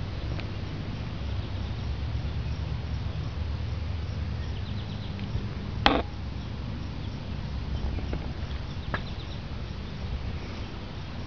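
Outdoor background of a steady low hum with faint high chirps now and then, and one sharp click about six seconds in, with a softer one near nine seconds.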